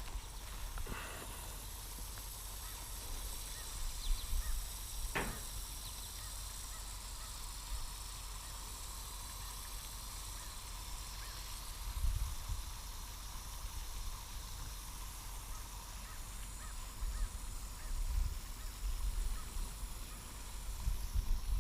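Quiet outdoor ambience with wind buffeting the microphone now and then and a single short, faint call about five seconds in.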